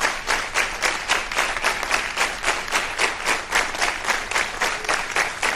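Studio audience clapping in unison to a steady beat, about three to four claps a second.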